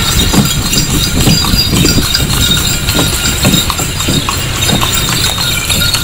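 Horse's hooves clip-clopping on a paved road at a steady pace, a few beats a second, as the horse pulls a passenger cart.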